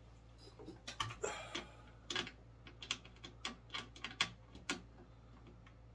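8 mm nut driver working the adjustment nut on a Thorens TD-160 turntable's spring suspension, raising that side of the sub-chassis: about a dozen small, irregular clicks and taps.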